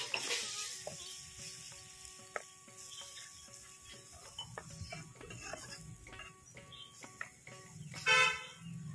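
Steel spatula stirring and scraping a simmering curry in a clay pot, with scattered scrapes and clicks over a low bubbling sizzle. Near the end a loud, short pitched call cuts in.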